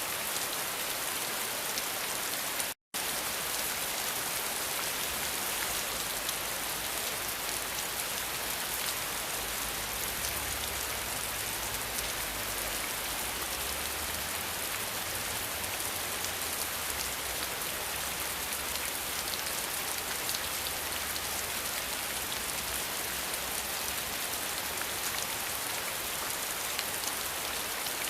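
Steady heavy rain, a dense even hiss of many drops falling on surfaces. It cuts out to silence for a split second about three seconds in, and a faint low rumble runs underneath through the middle.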